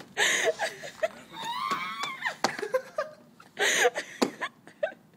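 A girl coughing on a mouthful of ground cinnamon: two short, harsh, breathy coughs about three and a half seconds apart. Between them comes a high voice rising and falling.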